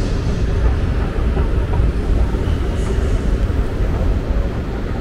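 Subway train running: a steady, loud low rumble with a hiss above it.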